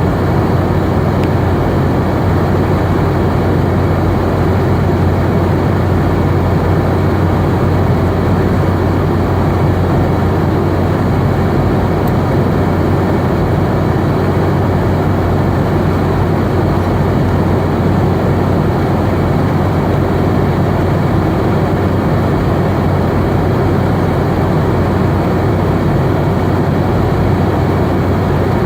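Steady cabin noise of a Boeing 717 in flight: a constant low hum and airflow roar from its rear-mounted Rolls-Royce BR715 turbofan engines, with no change in pitch or level.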